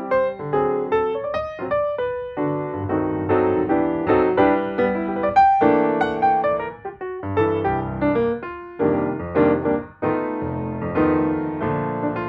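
Background piano music, a flowing melody over chords with notes struck in quick succession.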